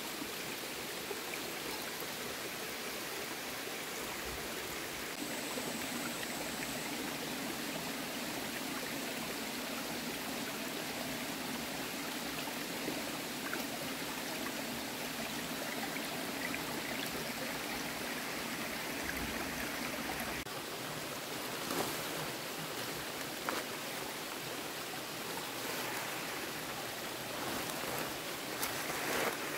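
Steady rush of flowing water, with a few faint knocks in the later part.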